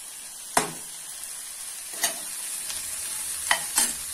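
Chopped vegetables sizzling in hot oil in a stainless steel pot while a metal spoon stirs them, with four sharp clinks of metal on the pot, the loudest about half a second in.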